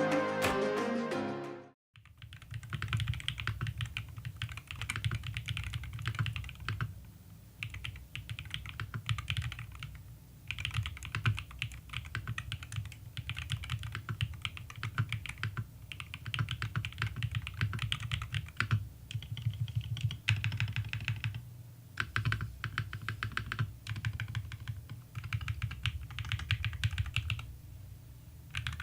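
Music fades out, then fast typing on a Madlions Nano68 Hall Effect keyboard with Magnetic Per Pro magnetic switches. It gives a thocky sound of deep thuds with lighter clicks, in runs of keystrokes broken by short pauses.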